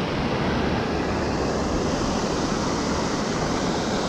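Steady rush of churning white water in the river just below the platform, loud and unchanging.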